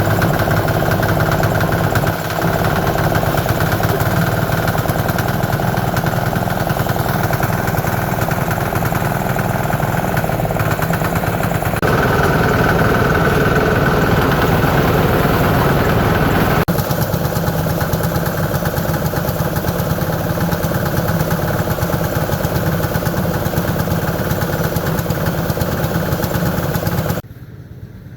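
An engine running steadily and loudly, its tone shifting abruptly a few times and dropping off sharply near the end.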